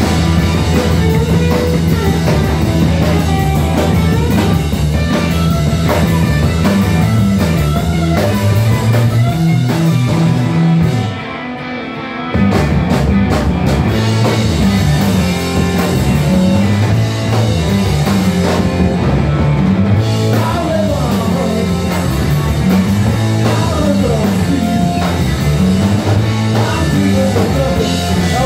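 Three-piece rock band playing live: electric guitar, electric bass and drum kit in a driving groove. About eleven seconds in, the bass and drums stop for a moment, then the full band comes back in a second and a half later.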